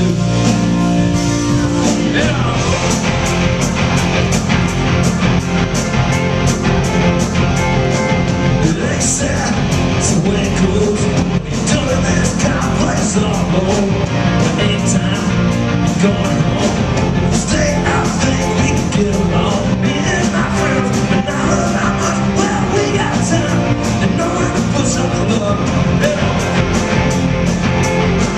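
Rock band playing live at a steady loud level, with electric guitar, bass, drums keeping a steady beat, and singing.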